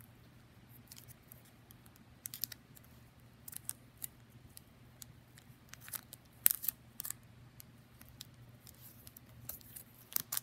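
Plastic sleeve pages of a trading-card binder being turned and handled, giving irregular crinkles and sharp clicks of plastic; the sharpest click comes about six and a half seconds in.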